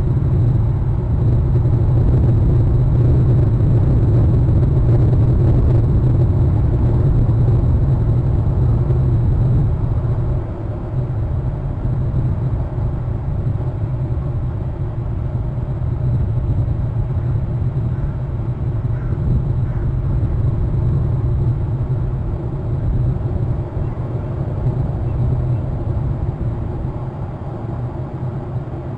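Wind buffeting an outdoor microphone: a steady low rumble that eases off slightly about ten seconds in.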